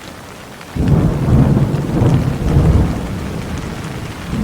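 Steady rain falling, with a low rumble of thunder that breaks in suddenly about a second in and slowly eases off.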